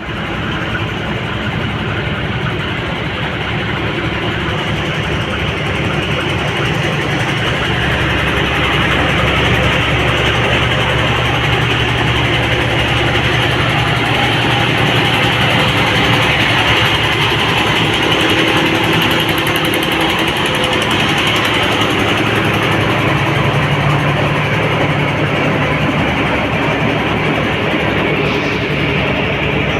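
An engine running steadily and loud throughout, its low hum shifting slightly in pitch a few times.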